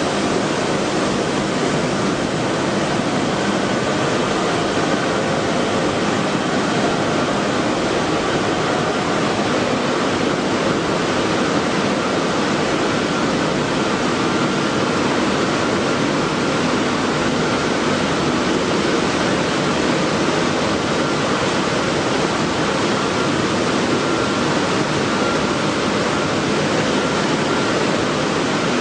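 Wheat flour mill machinery running: a steady, dense noise with faint humming tones and no change throughout.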